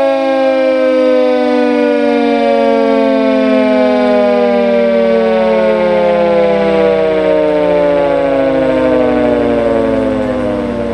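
Castle Castings electric mechanical siren winding down, its tone falling slowly and steadily in pitch, and getting quieter near the end.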